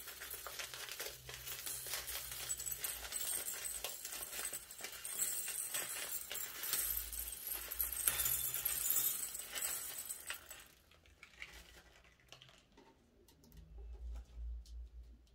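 Wet, sticky crackling of slime being worked and squished by hand, dense at first, then thinning to a few scattered faint clicks about ten seconds in.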